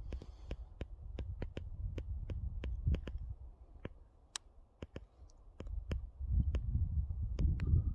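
Wind buffeting the phone microphone in gusts, easing for a moment around the middle and picking up again near the end, with a run of sharp clicks at about four a second.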